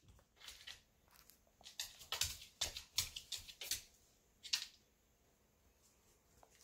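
A dog moving about on a hardwood floor while nosing at a cat: a scatter of short clicks and scuffs, busiest in the middle and dying away near the end.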